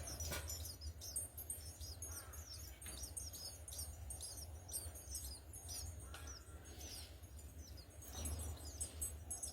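House sparrows chirping: a steady stream of short, quick chirps, several a second, over a low steady hum.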